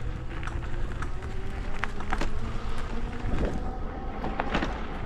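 Small vehicle engine running steadily while driving, with scattered knocks and rattles throughout.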